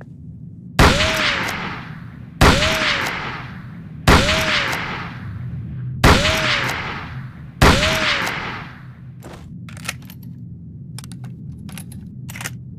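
Springfield rifle firing five single shots about a second and a half to two seconds apart, each with a long echoing tail, followed by a quick run of sharp metallic clicks.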